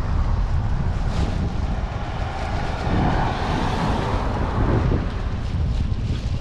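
Wind buffeting the microphone: a steady low rumble, with a broader rushing swell about halfway through.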